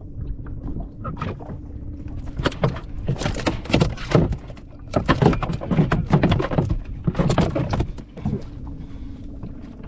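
Fishing boat's engine running steadily, with a run of loud, irregular sharp noises from about two and a half to eight seconds in.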